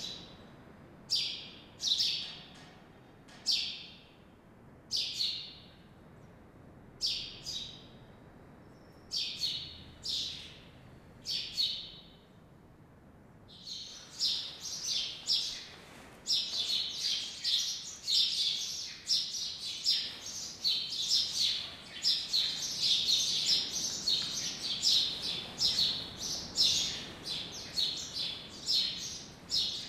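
Small birds chirping: single short high chirps about once a second at first, then from about halfway a dense chorus of many birds chirping together.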